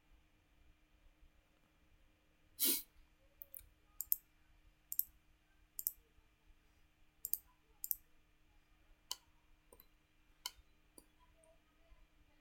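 Computer mouse button clicks, about a dozen at irregular intervals. One louder, longer click comes about two and a half seconds in. A faint steady hum runs underneath.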